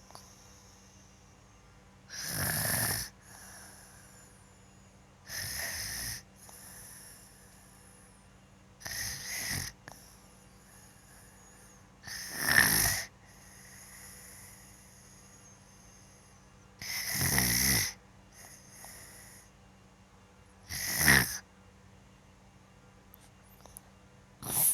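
A sleeping boy snoring: about seven loud snores, one every three to four seconds, most followed by a softer breath out.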